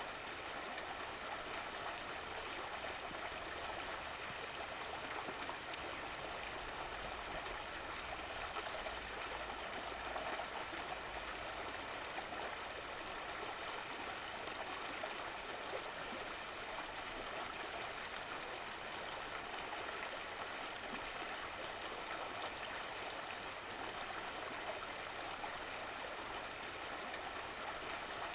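Running water: a stream flowing and trickling in a steady, even rush.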